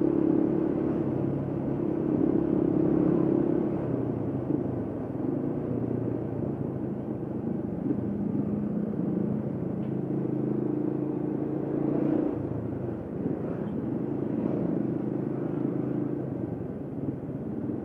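Honda Tiger 2000's single-cylinder engine running while the motorcycle is ridden along a road, its engine speed shifting up and down every few seconds.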